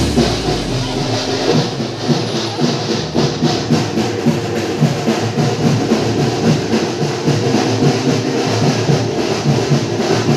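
Background music with a steady beat of drums and percussion over sustained tones.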